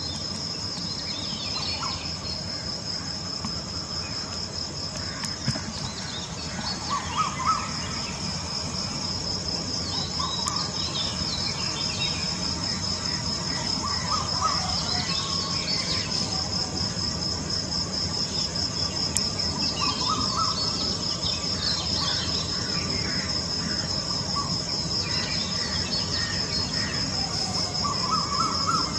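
Steady high-pitched chirring of insects, with birds calling every few seconds.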